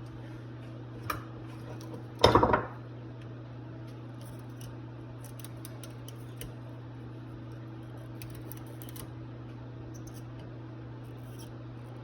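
Small metal carburetor parts and tools clinking on a workbench, with one louder clatter about two seconds in and a few light ticks after, over a steady low hum.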